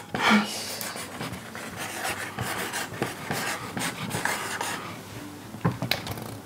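Pens scratching in irregular strokes as answers are written on the backs of handheld boards, with a short breathy vocal sound near the start.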